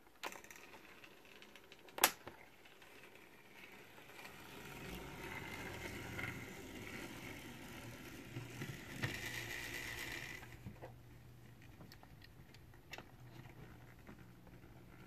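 Two sharp clicks in the first two seconds as the power pack controls are handled. Then the small electric motor and gearing of a brass HO scale steeple cab locomotive whir faintly, with its wheels clicking over the rails. The whir builds about four seconds in and drops off after about ten seconds.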